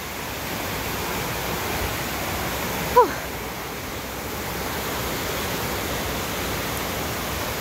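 Steady rushing of a river below the trail. About three seconds in there is one short voice sound that falls in pitch.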